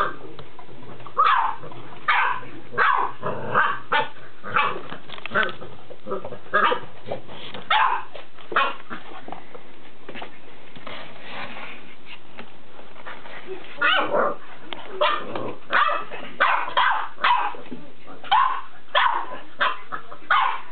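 Boxer dog barking in short, repeated barks, about one or two a second, with a lull of a few seconds in the middle.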